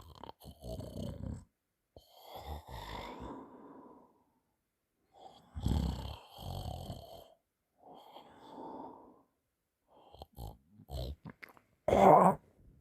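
A person snoring in their sleep: four snoring breaths, each one to two seconds long, a second or two apart. Near the end come a few short clicks and then a brief loud noise.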